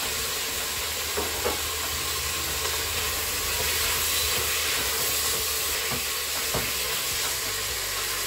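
Chicken pieces sizzling steadily in oil in the inner pot of a Crockpot Express multicooker on its sauté setting, with a few light knocks of a spatula stirring them.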